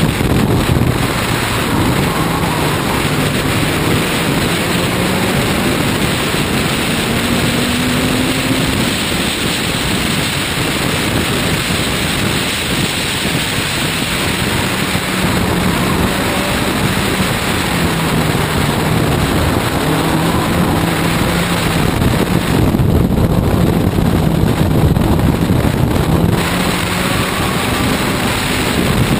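Race car's engine under load at speed, its pitch repeatedly rising and then dropping back through gear changes and corners, under heavy wind rush on an outside-mounted microphone.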